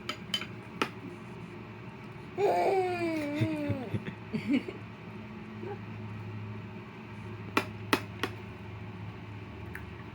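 A baby lets out a drawn-out, high-pitched, wavering squeal lasting about a second and a half, starting a couple of seconds in. There are a few sharp clicks and a low steady hum.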